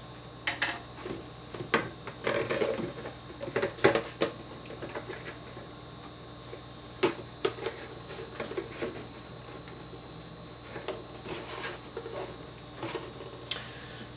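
Irregular clicks, knocks and light clatter of plastic being handled: an empty plastic milk jug set into a plastic tub and shifted about, over a faint steady hum.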